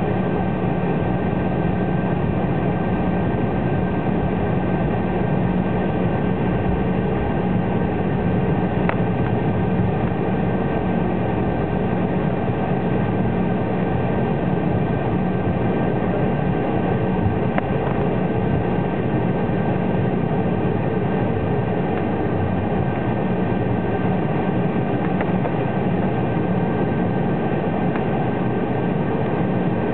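Steady cabin hum of an Embraer 190's GE CF34-10E turbofans at taxi power, heard from inside the cabin near the front, with a low droning tone and a thin high whine. A couple of faint clicks come through partway in.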